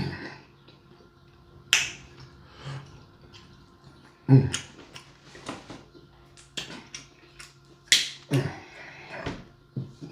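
A person eating king crab up close: a string of wet mouth smacks and sharp clicks at irregular spacing, the loudest about four and eight seconds in.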